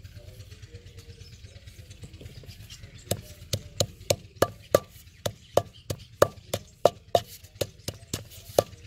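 Wooden pestle pounding fresh mint leaves, chillies and salt in a heavy stone mortar: steady knocks about three times a second, starting about three seconds in.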